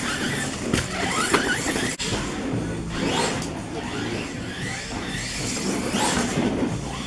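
Arrma Talion EXB RC truck's brushless electric motor whining up and down in pitch again and again as the truck accelerates and slows around a dirt track. There are a couple of sharp knocks about a second in.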